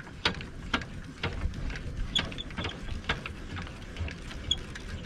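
Corner stabiliser leg of a Jayco Swift camper trailer being wound up with a hand crank winder, the screw mechanism giving a rhythmic clicking and scraping about twice a second as the handle turns.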